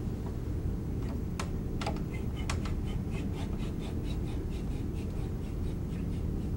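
Steel tube expander being worked back and forth by its arm inside a trumpet's main tuning slide outer tube, stretching the loose brass tube to a snug fit: a run of light clicks, quickest in the middle, over a steady low hum.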